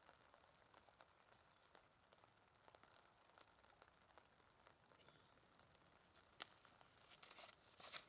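Near silence, with faint scattered crackles and clicks and a few slightly louder ones near the end.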